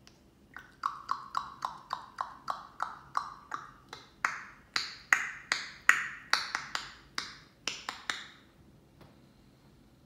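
African grey parrot giving a quick run of about two dozen sharp, ringing clicks, about three a second. About four seconds in they jump higher in pitch and get louder, and they stop a little after eight seconds.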